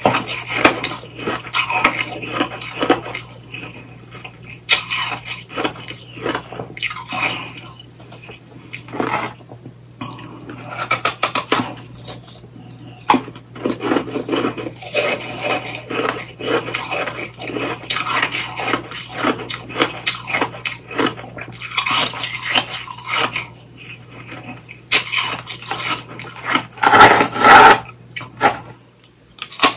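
Ice being crunched and chewed close to the microphone: rapid, dense crackling from bites of an all-ice popsicle, with short pauses between mouthfuls.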